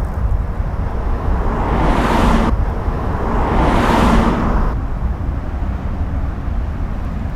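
Vehicle noise: a steady low rumble with two swells of rushing noise, each building over a second or two and cutting off suddenly, about two and a half and four and a half seconds in.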